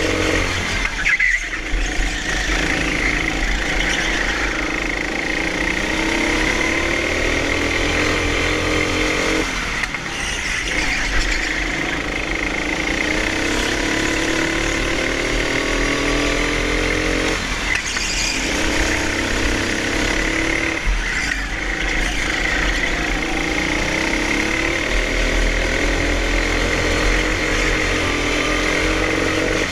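Hire go-kart engine heard from on board the kart, revving up in four long rising pulls on the straights and dropping off sharply for each corner. A high tyre squeal runs alongside and grows stronger through the turns.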